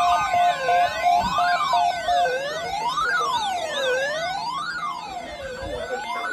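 Electronic siren wailing, rising and falling about every second and a half. A rapid beeping tone runs beneath it and stops about two seconds in.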